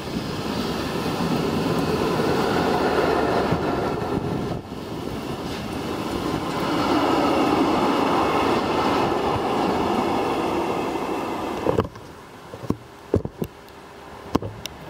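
A freight train of bogie tank wagons passes at speed: a steady rolling rumble of wheels on rail. It cuts off abruptly about twelve seconds in, leaving a quieter background with a few sharp clicks.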